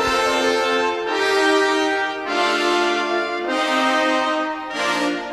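Background music: a series of held chords, each changing to the next about every second.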